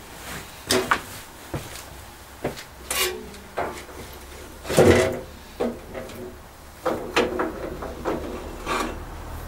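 Freshly cut steel knife blanks being handled and set down: about ten irregular knocks and clinks, some with a short metallic ring. The loudest comes about five seconds in.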